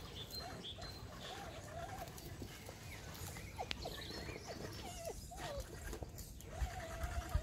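A border collie whining in short, wavering high notes several times, over a low rumble.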